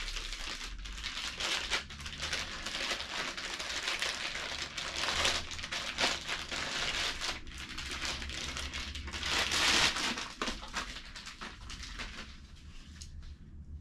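Packaging wrap and foam padding crinkling and rustling in irregular bursts as a riflescope is pulled out of its wrapping, louder about six and ten seconds in.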